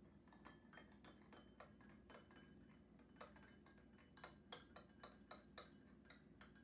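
A metal spoon clinking against the inside of a drinking glass as powder is stirred into water, light ringing taps about three a second.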